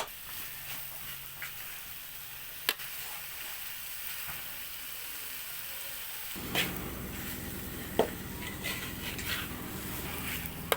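Food sizzling as it is stir-fried in a hot pan, with a few sharp clicks of a utensil against the pan. A low rumble joins the sizzle about six seconds in.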